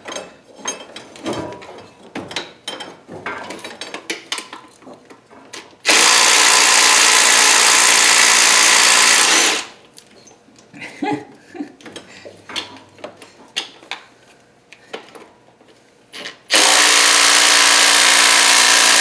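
A power tool runs hard in two long bursts, loosening and backing out the bolts of an engine's AC mount bracket. Between the bursts come small clicks and knocks of the tool and socket being handled.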